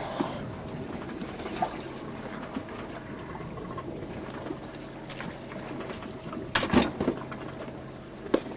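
The boat's motor runs with a steady hum under the sound of water, broken by a few light knocks. A louder clatter of knocks comes about two seconds before the end.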